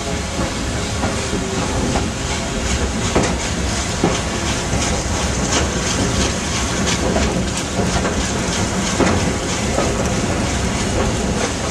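Steam-hauled train running, heard from an open coach window: the coaches' wheels clicking irregularly over rail joints and pointwork, under a steady rush of running noise, with the three-cylinder A1 Pacific 60163 Tornado working at the head of the train.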